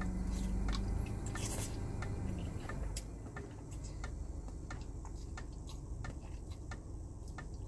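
Close-up eating sounds of ramen noodles being slurped off a plastic fork and chewed, with many small wet mouth clicks.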